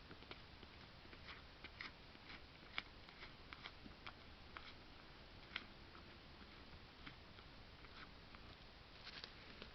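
Faint, irregular crunching clicks of a doe chewing apple chunks and feed, with two louder clicks about three and five and a half seconds in and a short cluster near the end.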